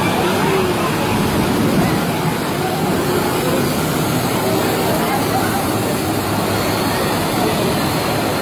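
A passenger train running through floodwater over the tracks: a steady rush of churning, splashing water pushed aside by the train, with a crowd chattering.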